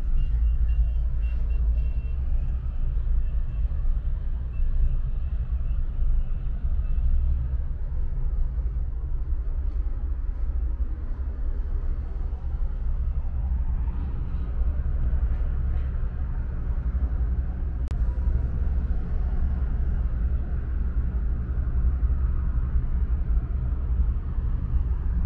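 Steady low rumble from a cable car cabin travelling down its cable, with a single sharp click about 18 seconds in.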